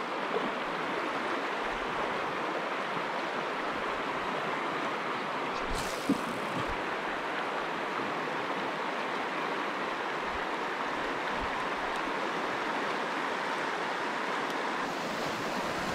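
Steady rush of a shallow river running over rapids, with a small knock about six seconds in.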